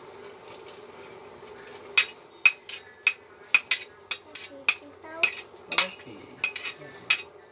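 Metal ladle clinking and scraping against a plate as string beans are pushed off it into the cooking pot: about a dozen sharp, irregular clinks starting about two seconds in.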